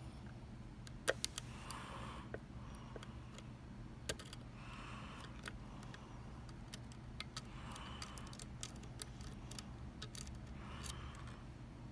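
A lock pick working the pins of a Mul-T-Lock MT5 dimple lock: scattered small, sharp metal clicks and taps, the loudest about a second in and again about four seconds in. A soft hiss returns about every three seconds over a low steady hum.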